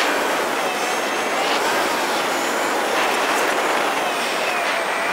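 A motorcycle on the move: a steady rush of wind and road noise with a faint engine whine that wavers slightly in pitch.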